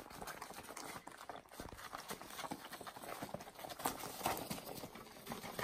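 Puppies scrambling and wrestling on puppy training pads: a run of light, irregular taps and rustles from their paws.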